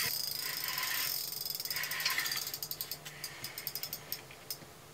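Spinning reel being handled, with a rustle of handling noise and then a quick run of ratcheting clicks that thins out near the end.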